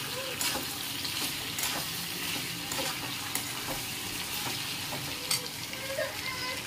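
Chicken frying and sizzling in a pan with a steady hiss, while a spoon stirs it and clicks and scrapes against the pan at irregular intervals.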